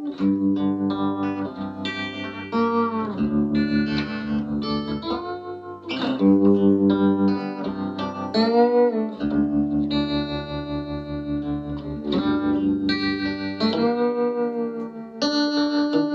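Electric guitar played through a Davoli D531T 10W push-pull valve amplifier with its tremolo on. Chords and single notes are held a second or two each, and the volume pulses evenly several times a second.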